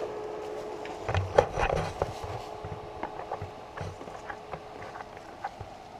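Knocking and rustling of someone moving through brush at a bait site: a burst of knocks and dull thumps about a second in, then scattered light clicks and cracks.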